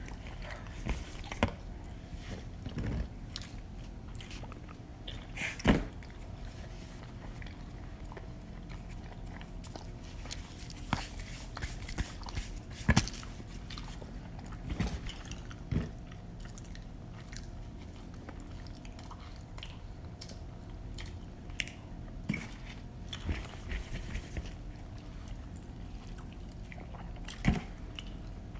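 People chewing and biting pizza close to the microphone, with scattered crunches and smacking clicks.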